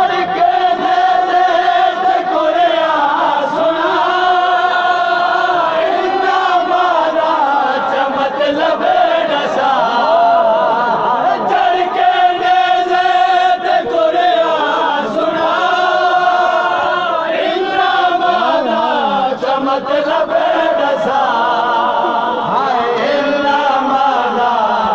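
A man chants a noha, a Shia mourning lament, into a handheld microphone. The melody comes in long, held, wavering lines.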